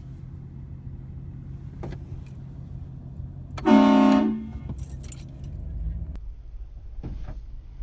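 A vehicle-mounted train horn blasts once, loud and pitched, for just under a second, over the low steady hum of the vehicle's running engine.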